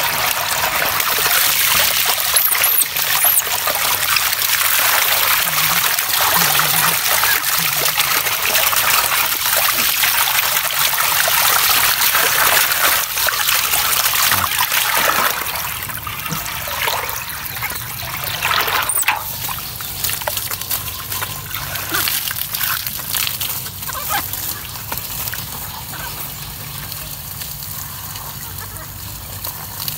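Water poured and splashed by hand over a baby monkey in a metal basin, a continuous trickling and splashing that is louder for the first half, then softer sloshing as the monkey is soaped and scrubbed in the water.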